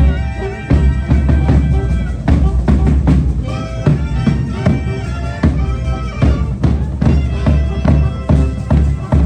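Mexican brass band music: horns and clarinets playing sustained melody lines over a steady bass drum beat.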